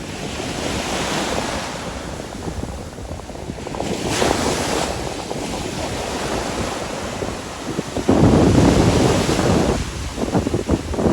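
Ocean surf washing onto a beach, with wind buffeting the microphone. A louder wash comes about four seconds in, and the loudest stretch, a low rumble, about eight seconds in, lasting over a second.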